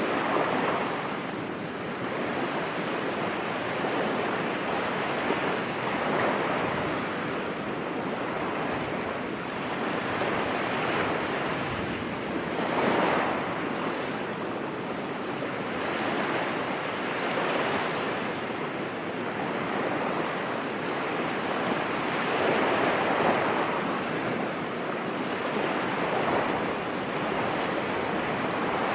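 Sea waves breaking and washing up a beach, a continuous surf noise that swells every few seconds as each wave comes in, with some wind buffeting the microphone.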